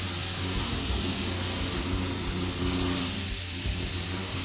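Romi D 1250 vertical machining center milling a metal mold block: a steady machine hum with a hiss over it from the spindle and cutter at work.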